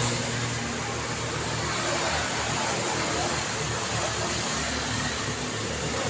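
Steady road traffic noise: a continuous hiss of tyres on the road with a low hum from passing vehicles.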